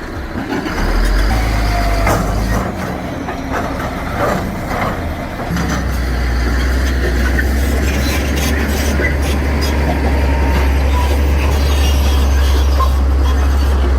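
Heavy earthmoving machine's diesel engine running, with knocks and clanks over it in the first few seconds. A deep, steady drone sets in about five and a half seconds in and holds.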